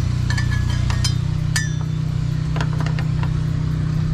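Metal wrench clinking against a brake chamber's air-line fitting: irregular sharp, ringing clinks, a cluster in the first second and a half and a few more around the third second. A steady low engine hum runs underneath.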